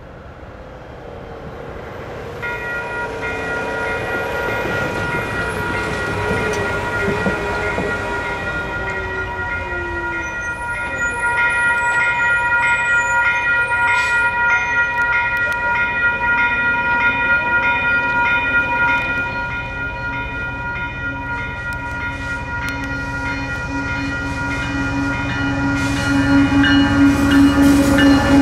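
WCH Type 4 electronic crossing bell starts about two seconds in and rings steadily as the grade crossing activates. Near the end a Union Pacific diesel locomotive rumbles in and grows louder as it reaches the crossing.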